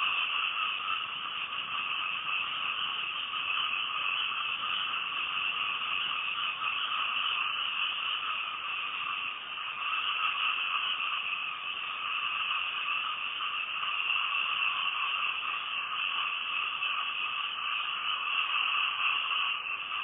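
Night chorus of many frogs calling at once: a steady, unbroken wash of overlapping calls in which no single call stands out.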